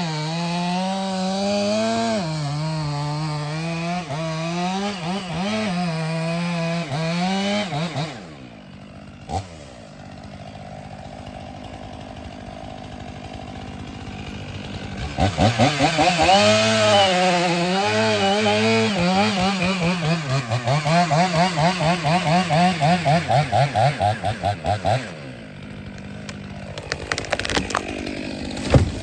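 Two-stroke chainsaw cutting wood at high revs, its pitch dipping and recovering under load. The revs fall away about eight seconds in and rise again at about fifteen seconds for a second cut, with rapid throttle pulsing before the saw drops back near the end, followed by a sharp click.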